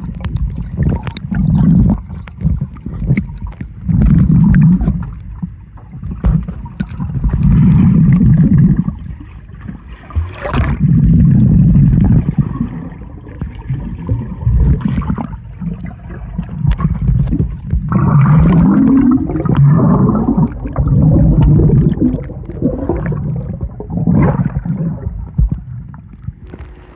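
Pool water heard through a submerged phone microphone: muffled rumbling and gurgling that swells and fades every second or two, with a few sharp clicks.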